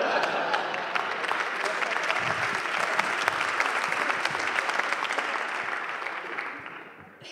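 Theatre audience applauding: dense, steady clapping that fades away near the end.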